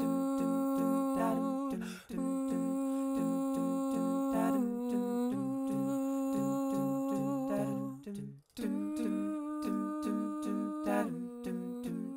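Layered a cappella vocal loops: a low sung "dum dum" bass line pulsing about four times a second under sustained hummed chords. The sound drops out briefly about two seconds in and again just past eight seconds.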